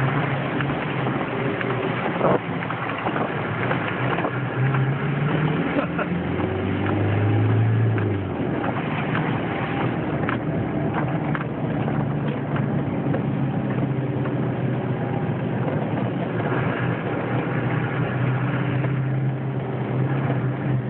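Land Rover 110 County engine running under way, with steady tyre and water noise from the wet lane. Around six seconds in the engine note drops lower and gets louder for about two seconds, then settles back.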